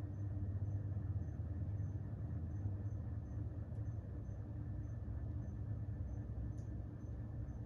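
A 1989 Evergo Spinner 36-inch ceiling fan running steadily on high speed: a low motor hum with a faint, fast, regular ticking above it. Two brief clicks sound partway through.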